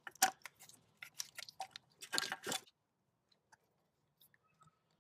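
Plastic clicks and crackles of a car's wiring harness being pulled apart by hand: a quick cluster of snaps and rustles over the first three seconds, then a few faint ticks.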